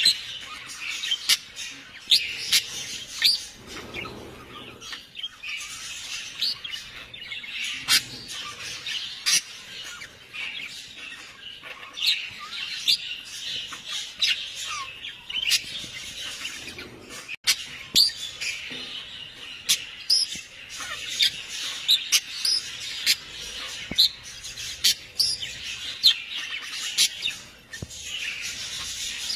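Many birds chirping: a dense, overlapping run of short, high chirps and calls.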